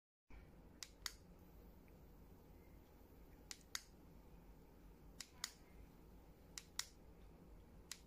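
Button on a cordless portable USB humidifier pressed by a thumb: four quick double clicks of press and release, spaced about a second and a half to two seconds apart, then a single click near the end, switching the mist on and off.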